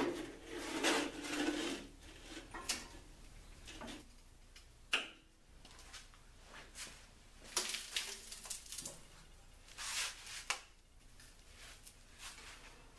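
Thin sheet metal sliding, scraping and rattling as it is positioned and clamped in a homemade angle-iron sheet-metal brake. Scattered metal clanks, with a sharp knock about five seconds in.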